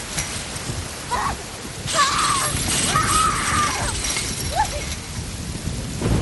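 Steady rain with a woman's short, strained whimpering cries, several in a row, each bending up and down in pitch.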